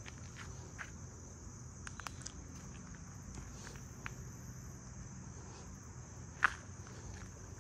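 Steady high-pitched buzz of insects over a low rumble, with scattered small clicks and one sharper click about six and a half seconds in.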